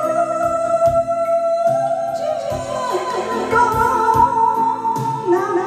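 Vietnamese karaoke song played through a pair of Amate home karaoke loudspeakers: a backing track with a steady beat under a voice holding long notes with vibrato.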